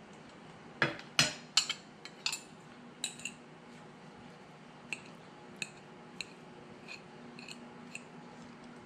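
Metal fork clinking and scraping against a ceramic plate while food is scooped onto it: a quick cluster of sharp clinks about a second in, then lighter single clinks every half second or so.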